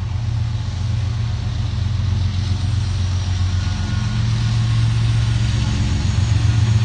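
Diesel-electric locomotive engine running with a steady low drone, slowly growing louder as the lead CN unit of a loaded coal train approaches.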